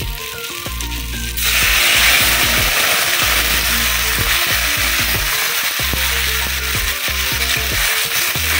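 A metal spatula scrapes spiced potatoes in a hot kadai. About a second and a half in, water is poured into the hot pan and it breaks into a loud, steady hiss of sizzling steam as the curry broth goes in, with the spatula still scraping.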